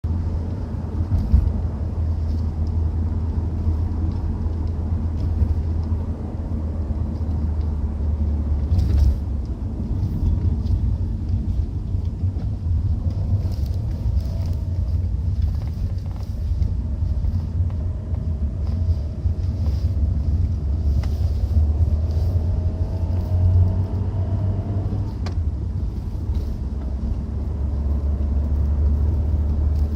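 Citroen C4 driving, a steady low rumble throughout, with a faint whine that slowly rises in pitch through the middle. The owner blames the rumble on something at the front or under the car in 1st and 2nd gear; it falls silent when the clutch is pressed. He has also heard a whine since a gearbox oil change. A few brief knocks come from inside the car.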